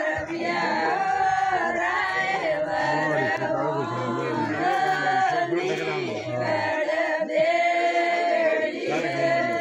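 A group of women singing a traditional Marwari wedding song together, a continuous melody of held, wavering notes.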